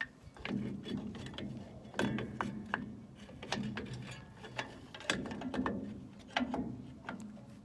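Irregular metallic clicks and clinks as drum-brake parts and tools are handled and fitted back in, over a low steady hum.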